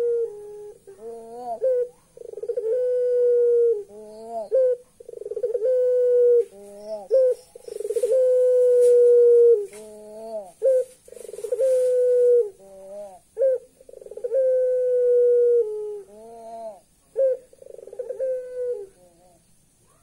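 A caged Barbary dove (puter pelung) cooing over and over in a repeated phrase: a short rising note, then a long, steady, deep coo held for over a second. There are about seven phrases, and they stop shortly before the end.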